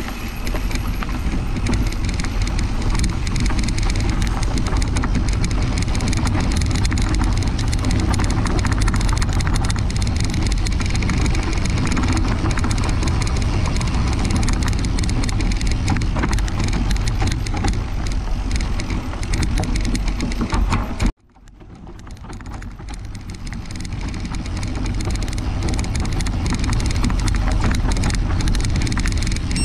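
Mountain bike riding on a leaf-strewn dirt trail, heard from the rider's own camera: a steady rush of wind on the microphone and tyre noise. About 21 seconds in, the sound cuts out suddenly and then fades back up over a few seconds.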